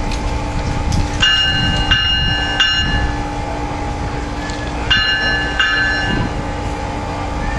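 Passenger train's bell ringing in uneven strokes as the train pulls out, three strokes in quick succession then two more after a pause, over a steady hum.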